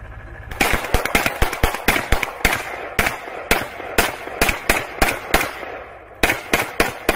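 Rapid, uneven gunfire from several shooters firing at once at a tracked ballistic shield. It starts about half a second in, eases off briefly, then ends in a last cluster of shots near the end.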